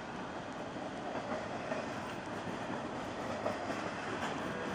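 Freight train cars rolling past: a steady noise of steel wheels on the rails, with occasional faint clicks.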